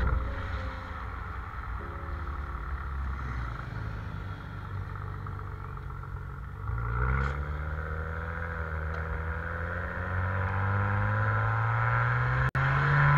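Maserati Ghibli S's twin-turbo V6 heard from inside the cabin, running gently at low speed, then pulling away about halfway through with a rising engine note and accelerating harder again near the end. The sound cuts out for a moment just before the end.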